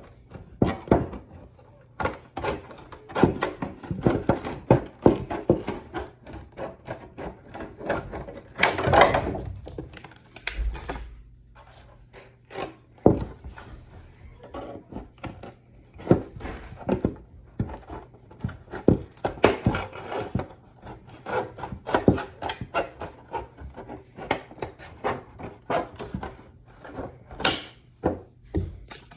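Shears cutting through the plastic of a costume armour chest piece: a long run of short, sharp snips and cracks at an irregular pace, a few each second, as the excess is trimmed away.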